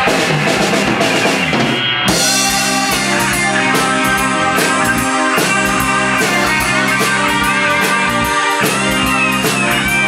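Live rock band playing electric guitar, bass guitar and drum kit. About two seconds in the drums settle into a steady beat under a lead electric guitar line with bent notes.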